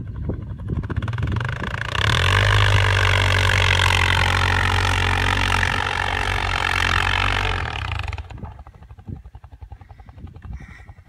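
ATV engine running hard at steady high revs under load as the quad climbs a steep snowy slope. The sound dies away after about eight seconds.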